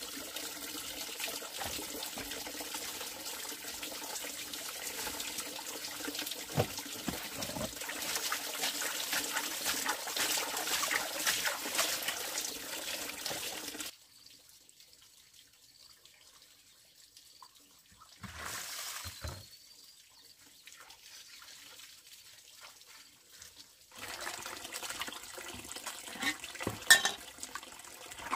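A stream of water pouring steadily into a plastic basin, then stopping about halfway through. Near the end, hands sloshing and splashing leaves about in a plastic basin of water.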